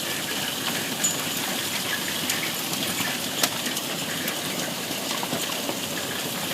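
Heavy hailstorm: a steady roar of rain and hail, with sharp cracks of large hailstones striking throughout. The loudest strike comes about three and a half seconds in.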